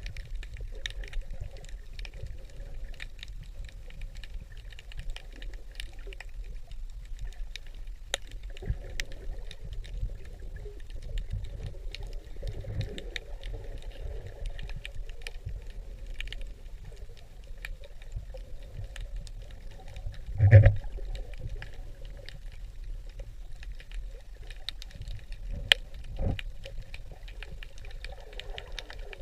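Underwater sound picked up by a camera in the sea: a low rumble of moving water with frequent small clicks and crackles, and one loud knock about twenty seconds in, with two smaller knocks a few seconds later.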